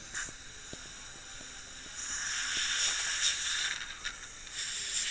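Dental equipment hissing: a rush of air in two stretches, one starting about two seconds in and lasting over a second, the other starting near the end, with a few faint clicks.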